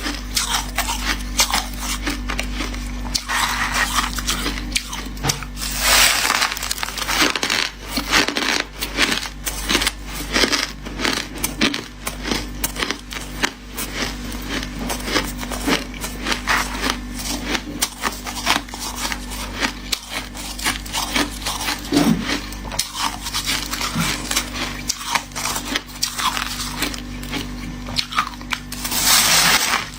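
Hard shaved ice and crushed ice being bitten and chewed close to the microphone: dense, continuous crunching with crisp, squeaky crackles. A few louder bites stand out, one about six seconds in and one near the end.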